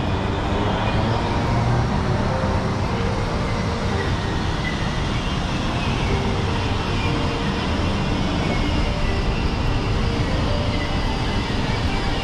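Steady city street noise, mostly motor traffic.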